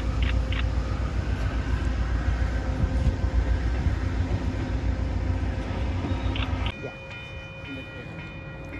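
Amtrak Genesis diesel locomotive running as it hauls a passenger train toward the station, a steady low engine rumble. Near the end it gives way abruptly to a quieter scene with a faint steady high tone.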